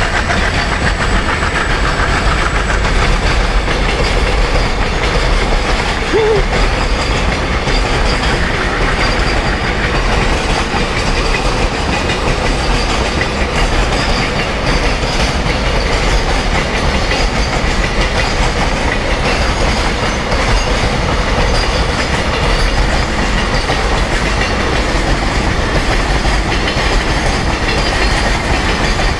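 Container-laden flat wagons of a long freight train rolling past on the track, a steady rumble of wheels on rail.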